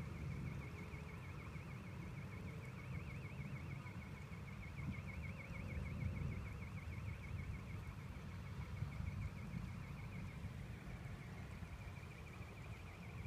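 Electronic alarm warbling at a high pitch, wobbling rapidly up and down several times a second, dipping briefly about ten seconds in and then carrying on, over a steady low rumble.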